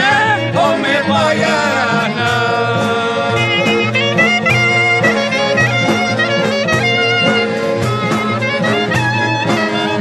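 Albanian folk song recording: a wind instrument plays an ornamented lead melody over accordion-style chords and a steady drum beat.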